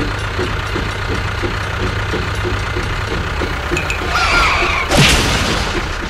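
Tractor engine chugging steadily with a regular beat of about three pulses a second. About four seconds in a wavering squeal rises over it, and about five seconds in comes a loud crash with a falling boom as a toy tractor smashes into another.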